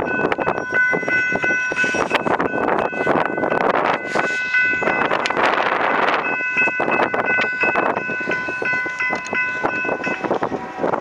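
Diesel freight locomotive air horn sounding a multi-note chord in two long blasts, the first breaking off about halfway through and the second stopping shortly before the end, over a loud rushing noise of a train and wind.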